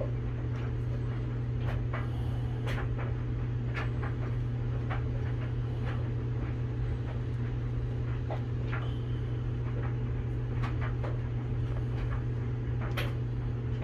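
Steady low hum, with a few faint ticks and clicks scattered through it.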